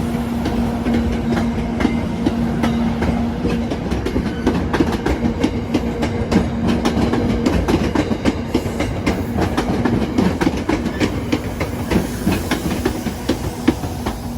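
NJ Transit train rolling over the track, its wheels clicking and clacking over the rails. A steady hum runs under it for the first half and then stops.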